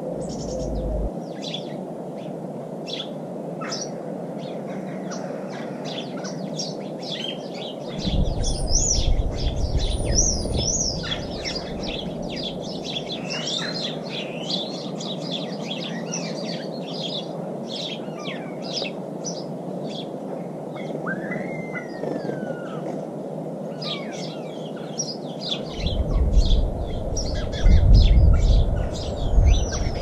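Many small garden birds chirping and calling in quick, overlapping high notes, with spells of low rumble about eight seconds in and again near the end.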